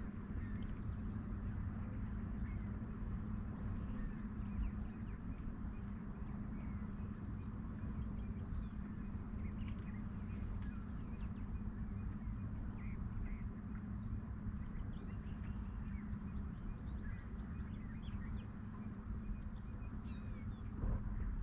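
Open-water ambience: a steady low hum, with scattered faint bird chirps and a short high call heard about ten seconds in and again near the end.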